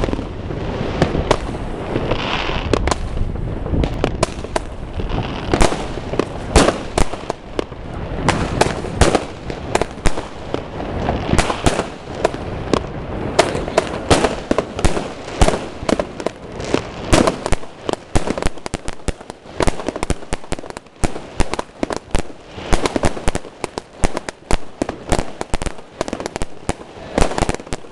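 Consumer firework batteries (cakes) firing shot after shot: quick launch thumps and aerial bangs, several a second, with a rushing hiss under them in the first few seconds.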